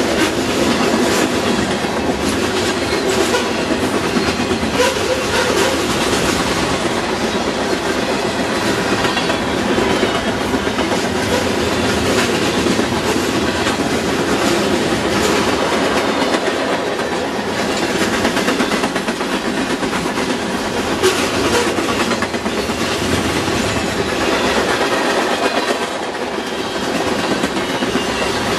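A freight train's cars (boxcars, tank cars and covered hoppers) rolling steadily past close by. It gives a continuous rumble of steel wheels on rail, with a constant patter of clicks and clacks from the wheels and trucks.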